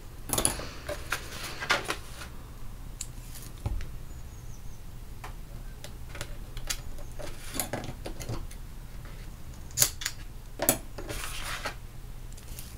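Double-sided adhesive tape being pulled off its roll in short rasping strips and pressed along the edges of cardstock, with paper rustling and small taps and clicks from handling.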